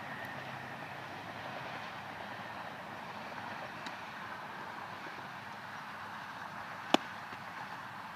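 Steady outdoor background noise, broken about seven seconds in by one sharp, loud pop: a thrown baseball smacking into a leather fielder's glove on the catch.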